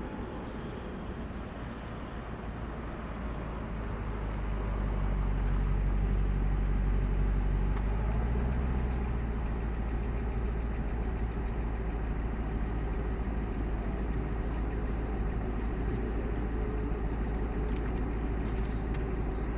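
Infiniti FX50S's 5.0-litre V8 engine running with a steady low hum; the sound swells louder about four seconds in and then holds steady.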